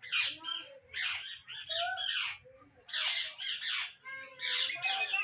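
Caged parrots squawking: a run of loud, harsh calls one after another, some coming in quick pairs.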